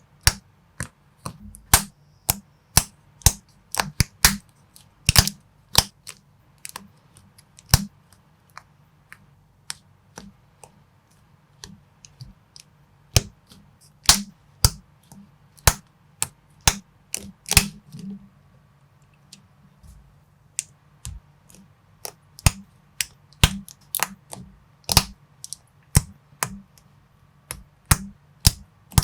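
Plastic Lego-compatible building bricks being clicked and pressed together by hand. Sharp, irregular clicks come several a second, with a few sparser stretches in between.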